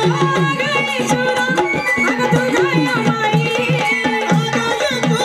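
Live Marathi folk song: hand drums play a quick, steady rhythm whose bass strokes bend in pitch, under a woman's amplified singing and melody.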